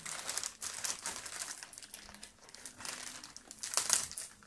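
Plastic postal mailer bag crinkling as it is pulled and worked open by hand, loudest near the end.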